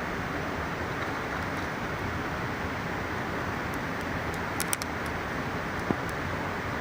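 Steady rushing of a mountain river, with a few sharp crackles from a small campfire, a quick cluster of them just past the middle.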